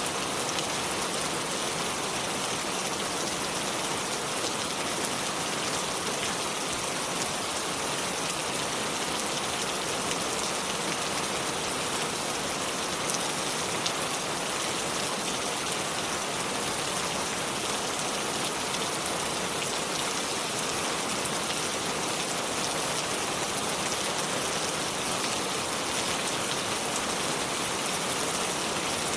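Shallow river flowing over stones, a steady, even rush of water with fine splashing and no change in strength.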